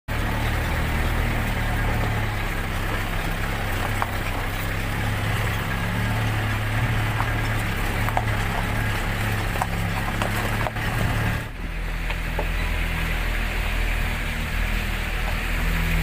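Vehicle engine running at low speed with its tyres crunching over a gravel track, small stones clicking now and then. The engine note drops out briefly about eleven seconds in.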